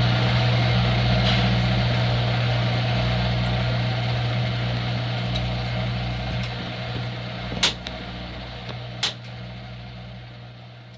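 Front-load washing machine winding down after its spin: a steady low hum under a whirring that slowly fades, with two sharp clicks in the second half. The hum cuts off near the end.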